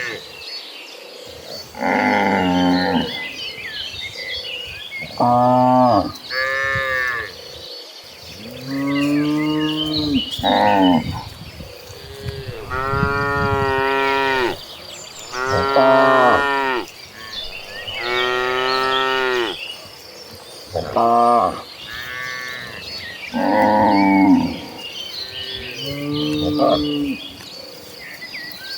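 A herd of cattle mooing, about a dozen calls from several animals at different pitches, some short and some drawn out for a second or more, following one another with brief gaps.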